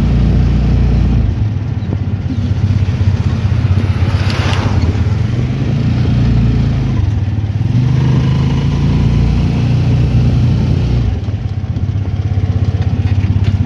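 A motor vehicle's engine running steadily with road noise, heard from on board while travelling.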